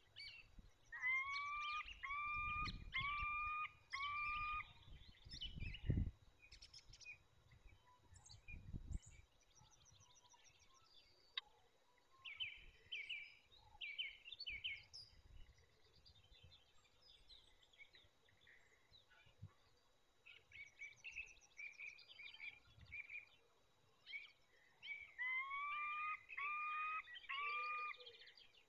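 Peregrine falcon calling at its nest: a series of four drawn-out, slightly rising calls, then three more near the end, courtship calling at the nest scrape. Small songbirds chirp faintly in the background.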